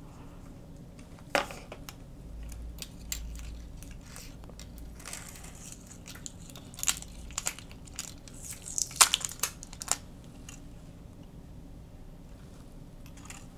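Scattered short crinkles and clicks of a smartphone battery pack and its flex cable being lifted out of the opened Samsung Galaxy S25 and turned over in the hands, the biggest cluster around nine seconds in.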